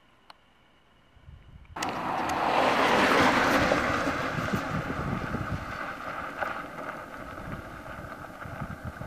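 Car driving on a rough road, with tyre and engine noise that starts suddenly about two seconds in, after near silence. It is loudest about a second later, then settles to a steady level.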